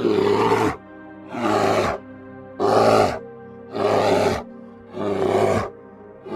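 A bear roaring in a series of short calls, about one every second and a bit, each under a second long, over steady background music.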